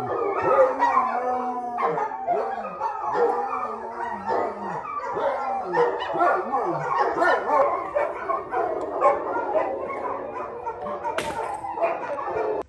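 A pack of dogs howling together in chorus, many voices overlapping and sliding up and down in pitch.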